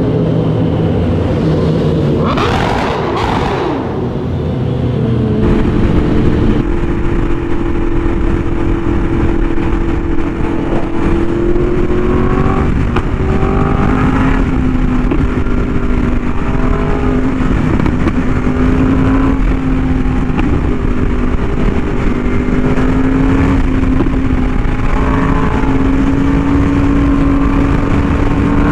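Yamaha R1M's crossplane inline-four through an SC Project exhaust, cruising at a steady, nearly constant engine speed, its note shifting only slightly. The engine is heard over a heavy rush of wind noise, with a short loud burst of hissing noise about two to four seconds in.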